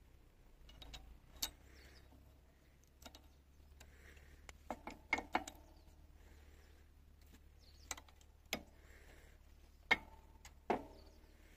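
Scattered light clicks and clinks of metal tools and small mower parts being handled, a few with a brief ring, a cluster of them about five seconds in and the loudest two near the end. A faint low hum sits underneath.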